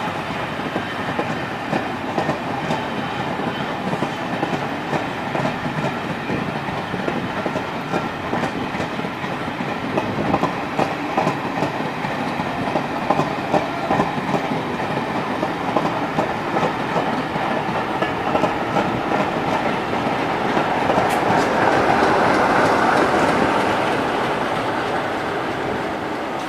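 A departing train of passenger coaches rolling past at low speed, its wheels clicking and clattering over rail joints and pointwork. Near the end the sound swells as the trailing Class 47 diesel locomotive passes, its Sulzer V12 engine running, then it begins to fade.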